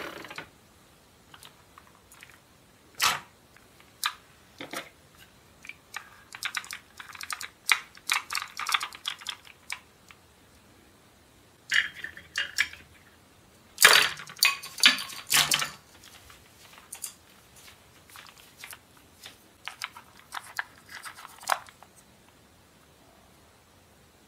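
Hard plastic toy pieces clicking, tapping and clattering as play food and a toy spatula are handled and set into a plastic toy bento box. The clicks come in irregular clusters with short quiet gaps, the loudest cluster about midway through.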